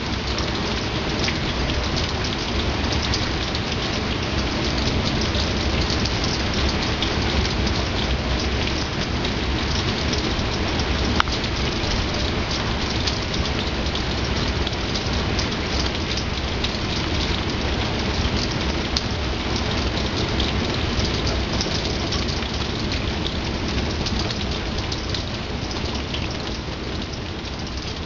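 Steady rain falling as a dense, even hiss of drops that eases slightly near the end.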